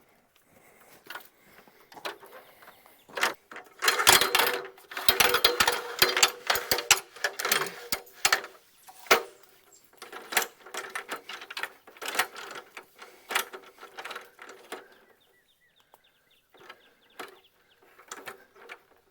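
Clattering and knocking of a metal ladder and tools being handled to free a stuck pole saw from a tree: a dense run of rattles and knocks about four seconds in, lasting some four seconds, then scattered knocks and clicks.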